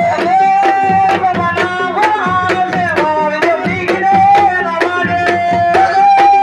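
Drums beating a fast, steady rhythm of sharp strokes, about three to four a second, under a high voice singing long held notes that bend up slightly as each note begins.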